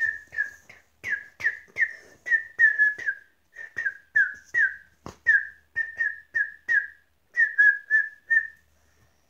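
A girl whistling a quick run of short notes, about two to three a second, each sliding slightly down in pitch with a sharp start; they stop shortly before the end.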